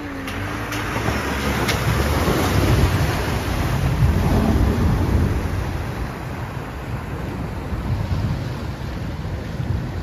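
A four-wheel drive's engine pulling through a deep river crossing, with water churning and splashing around the vehicle. It builds to its loudest a few seconds in, then eases off.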